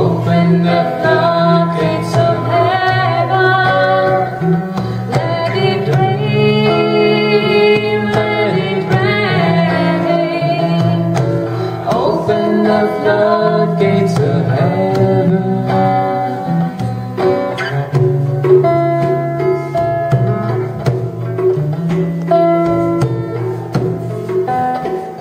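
Devotional song performed live: a voice singing a gliding melody over steady held drone notes, with a double-headed barrel drum beaten by hand in a regular rhythm.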